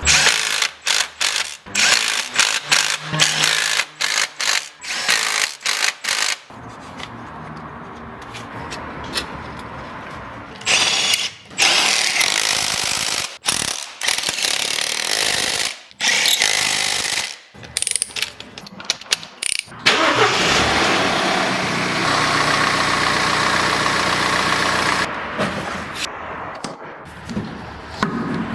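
Mechanical workshop noise from work on a Mini Cooper S engine's crank pulley. A run of short sharp bursts and clatters comes first, then louder noisy stretches, and a steady mechanical noise lasting about five seconds near the end.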